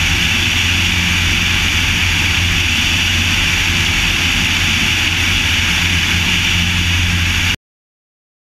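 Cessna 152's four-cylinder Lycoming engine and two-blade propeller at takeoff power, a steady loud drone with a rushing hiss, heard from under the wing. The sound cuts off abruptly about seven and a half seconds in.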